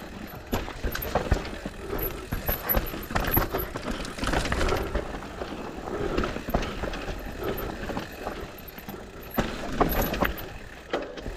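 Mountain bike riding fast over a rough dirt trail: tyres on dirt and rocks, and the chain and frame rattling with irregular knocks over bumps, over a steady low rumble of wind on the microphone.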